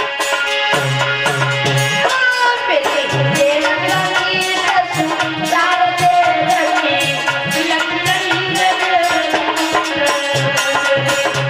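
Instrumental interlude of Indian folk music: a tabla-type hand drum keeps a steady beat under a sustained, wavering melody line.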